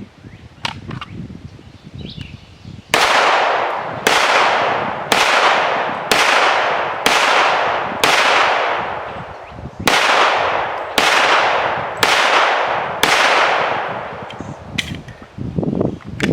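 Handgun firing ten shots, about one a second: six shots, a pause of nearly two seconds, then four more, each with a short ringing tail.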